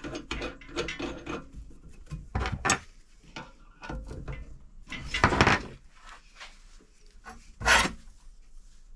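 Hands fitting a polishing pad into a drill press chuck, with the motor off: irregular rubbing and scraping handling noises with small clicks, and two louder bursts about five and eight seconds in.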